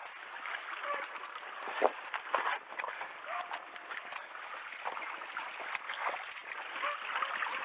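Footsteps splashing and scraping through a shallow rocky stream. Bamboo grass and brush rustle continuously against the walker.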